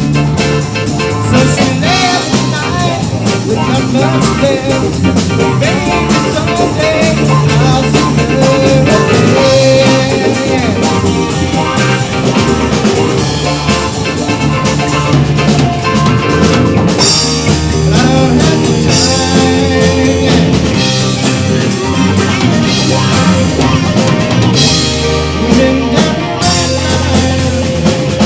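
A live rock band playing loudly: drum kit, electric guitars, bass guitar and keyboard together in a full, steady rock groove.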